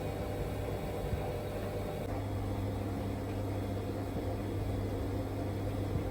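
Indesit WIL143 washing machine on its final 1400 rpm spin: a steady motor and drum hum, with an extra steady tone coming in about two seconds in. This spin is the stage at which the machine makes its strange noise.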